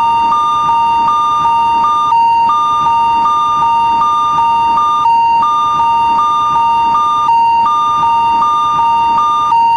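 Japanese railroad crossing warning bell, the electronic 'kan kan' ringing, sounding steadily. Two tones sound together, and the higher one drops out briefly every two seconds or so.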